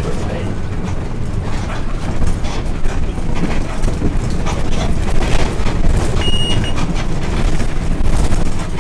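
City bus on the move, heard from inside: a steady engine and road drone with the body rattling and knocking, and a short high beep about six seconds in.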